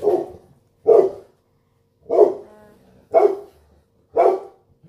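A dog barking, one sharp bark about every second, five barks in all.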